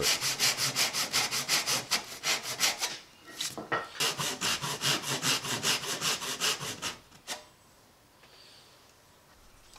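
Brass-backed hand saw (backsaw) cutting a hardwood board by hand, with quick, even strokes at about five a second. The sawing pauses briefly about three seconds in, resumes, and stops about seven seconds in.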